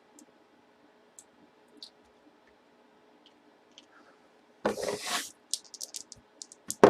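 A few faint, scattered clicks. Then two loud handling noises, one about two-thirds of the way in and one at the very end, with a quick run of sharp clicks between them.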